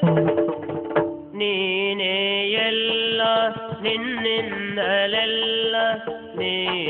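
Yakshagana accompaniment music: a melodic line held over a steady drone, with drum strokes. A new phrase starts about a second in.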